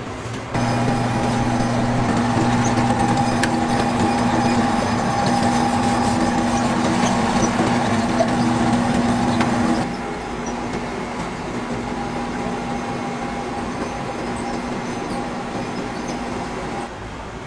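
Steady mechanical hum with a few held tones, louder for the first ten seconds, then dropping to a quieter steady hum and dropping again near the end.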